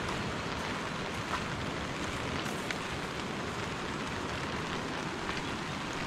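Steady hiss of rain falling, with a few faint scattered drip ticks.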